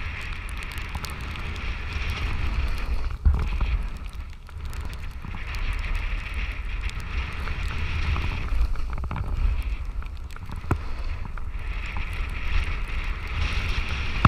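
Wind buffeting the microphone of a camera carried while snowboarding through powder, with the hiss of the snowboard sliding over snow swelling and fading every few seconds with the turns. A sharp knock sounds about three seconds in.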